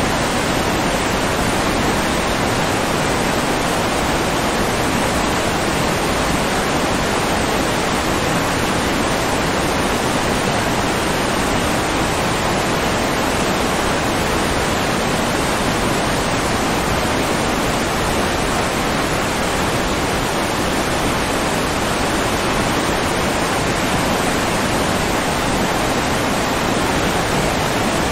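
Steady rushing water, an even hiss that does not change.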